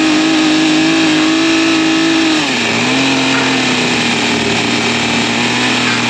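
Chainsaw running at high revs while cutting through roof boards; its engine note drops and settles lower about two and a half seconds in as the saw loads up in the cut.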